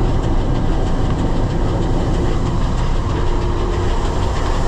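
International 1460 combine running steadily while harvesting soybeans, a dense low mechanical noise with a faint steady tone through the middle.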